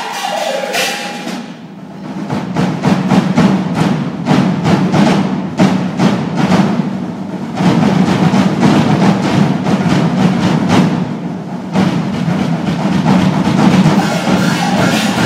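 Percussion trio playing dense, rapid drum strokes mixed with sharp wood-block-like clicks. The playing thins out briefly about a second and a half in, then comes back loud and continuous.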